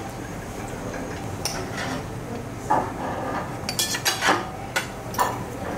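Knives and forks clinking and scraping on plates as grilled meat is cut at the table, with a cluster of sharp clinks in the second half.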